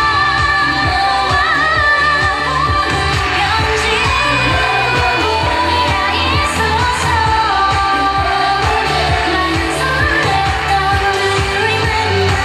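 K-pop girl group song played over stage PA speakers, with a steady bass beat and women's voices singing live into microphones.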